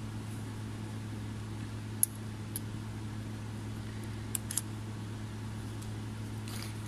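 Light metallic clicks of a lock being fitted onto a compressor's mechanical carbon seal: one sharp click about two seconds in, then a couple of fainter ones around four and a half seconds, over a steady low hum.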